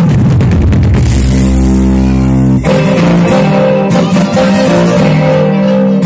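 Loud music played through an Ahuja SPX-810 two-way PA speaker, which has two low-frequency drivers and a horn tweeter, for a sound test. The music has a heavy low end and switches abruptly to a new passage about two and a half seconds in.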